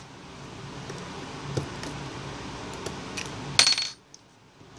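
A sharp metallic clink with a short ring about three and a half seconds in, as metal tweezers are set down on the repair bench. A faint tap comes earlier over a low background hum.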